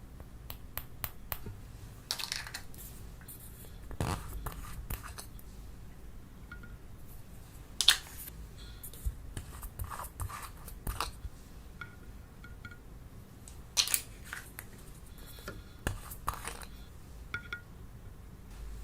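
Slime being handled close to the microphone: irregular crackles, sticky snaps and squishes, with a few sharper pops about 8 and 14 seconds in.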